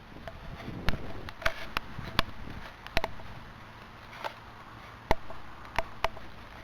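Bonfire crackling: about eight sharp, irregularly spaced pops and snaps from the burning wood and rubbish.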